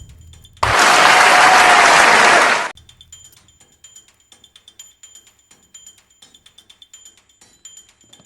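Loud burst of compressed air from an air tool, hissing steadily for about two seconds and cutting off sharply.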